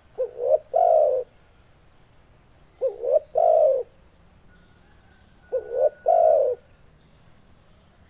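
Spotted dove cooing: three phrases about two and a half seconds apart, each a quick double note followed by a longer coo.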